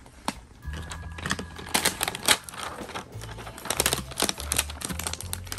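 Clear plastic wrapping film crinkling and crackling as it is peeled and pulled off a toy package, in quick bursts of clicks, densest about two seconds in and again about four seconds in.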